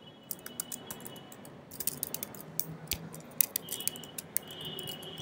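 Typing on a computer keyboard: irregular keystroke clicks, some in quick runs.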